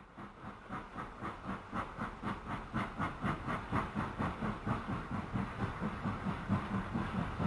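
Model steam train running along a layout's track: a steady rhythmic beat of about three a second that grows louder as it draws near.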